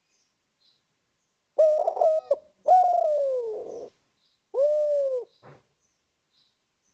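Spotted dove (tekukur) cooing one phrase of three notes: a short coo, a longer coo sliding down in pitch, then a short arched coo.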